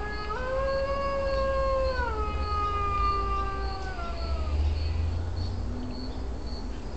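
A recorded wolf howl played through a cell phone's speaker: one long howl that rises at the start, holds, drops partway through and fades out about four and a half seconds in.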